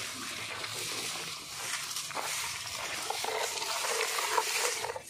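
Long twig brooms sweeping dry ground in repeated scratchy brushing strokes, a steady hiss of bristles scraping on dirt and debris.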